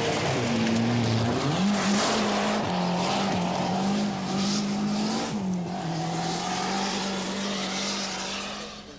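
Turbocharged Saab rally car's engine held at high revs while the car slides on loose gravel, spraying stones from the tyres. The engine note shifts in pitch about one and a half seconds in and again about five and a half seconds in, and it fades near the end.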